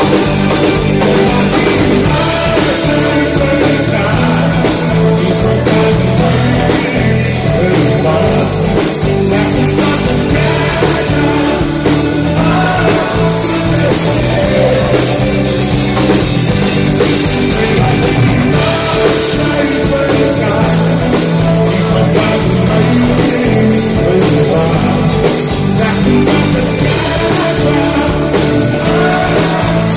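Live rock band playing loud, amplified music: drum kit, electric guitars, bass and keyboards, with a male lead singer.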